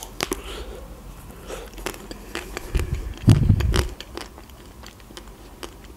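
Biting into a chocolate-coated Milka ice cream bar, the thin chocolate shell cracking, then close-up chewing with scattered wet mouth clicks and crackles. A low muffled thump about three seconds in is the loudest sound.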